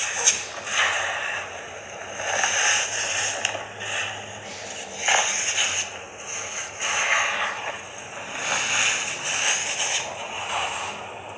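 Crunchy, crackling ASMR handling sounds coming in swells every second or two, with a few sharp clicks.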